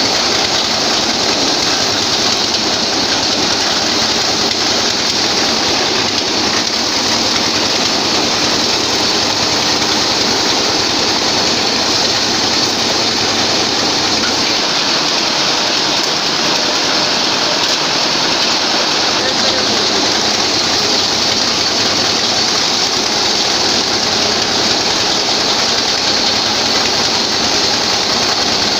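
Head-feed power paddy thresher running steadily under load, a continuous dense rushing clatter of the threshing drum and paddy.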